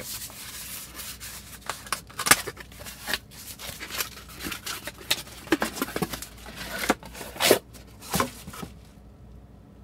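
Cardboard mailer box being opened by hand and a figure in a hard plastic protector case pulled out and handled: irregular rustling, scraping and sharp clicks of cardboard and plastic.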